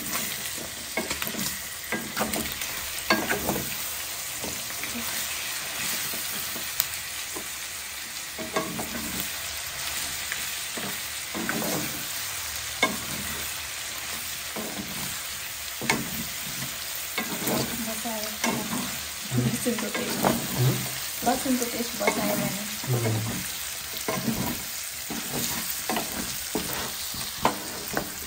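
Pork and potato pieces sizzling as they fry in a pan, stirred with a spatula that scrapes and knocks against the pan many times.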